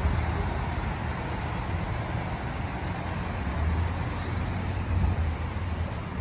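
Steady city traffic noise on wet streets: a low rumble under an even hiss.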